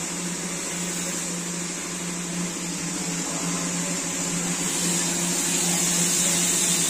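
Steady machine hum with a high hiss over it, growing a little louder near the end.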